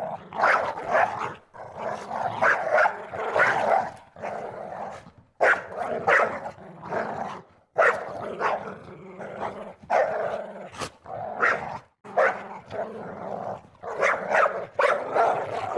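A dog barking in rapid volleys of several barks at a time, with brief pauses between volleys and growling mixed in, as a dog does when aggressively guarding its territory.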